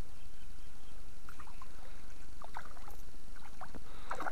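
A hooked fish splashing at the water surface as it is drawn in toward the landing net. Splashes come only now and then at first, then grow more frequent and louder near the end, over a steady low rumble.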